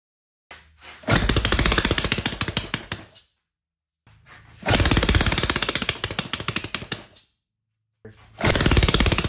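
A homemade 3D-printed 180cc single-cylinder engine being cranked three times; each try is a fast string of pops that lasts two to three seconds and fades away. The engine will not keep running.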